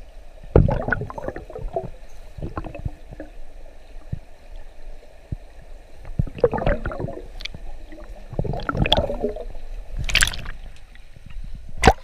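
Muffled underwater sound from a camera held below the surface of a pool: irregular gurgling and bubbling swells with scattered clicks and knocks, then a sharp splash just before the end as the camera breaks the surface.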